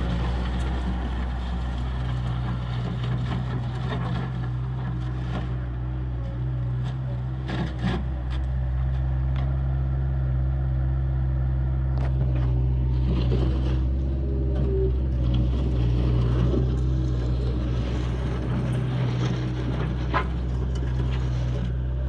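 Bobcat 763G skid steer's four-cylinder diesel engine running steadily as the machine drives and turns, with a few sharp knocks.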